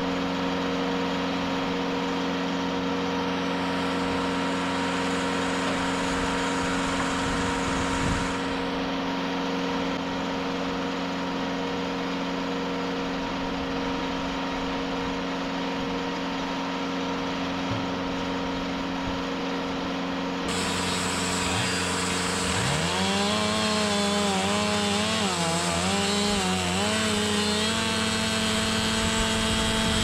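TimberKing 2520 portable band sawmill running with a steady engine hum. About two-thirds of the way in the sound brightens as the band blade goes into a hardwood log, and the engine note dips and wavers under the cutting load.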